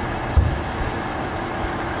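Steady low rumbling noise with one brief low thump about half a second in.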